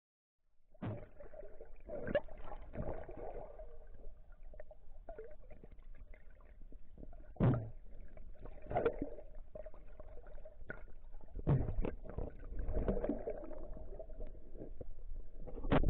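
Muffled underwater sound from a camera submerged in the sea: water sloshing and gurgling against the housing, with scattered knocks and thumps and a steady faint tone underneath. It begins about a second in.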